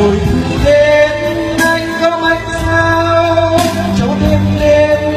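A man singing a Vietnamese love song into a microphone over backing music, amplified through a PA system, with long held notes.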